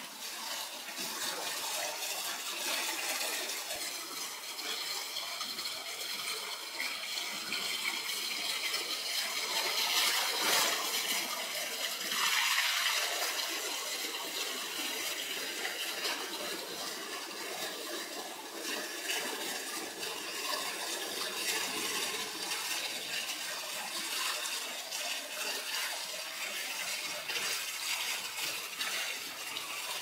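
Water of a small waterfall running and splashing steadily, swelling briefly louder about ten and twelve seconds in.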